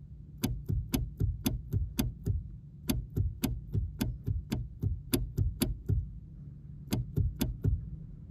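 Brake pedal of a Honda Step WGN (RP8) making sharp clicks as it is worked, about four a second in three runs with short pauses between, over a low steady hum. It is an abnormal pedal noise that a dealer dismissed as normal.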